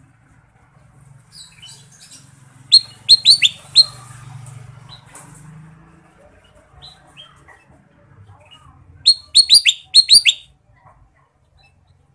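Kutilang emas bulbul calling: a quick run of about five sharp, falling chirps about three seconds in, and a second run of about seven near the end, with a few faint chirps between.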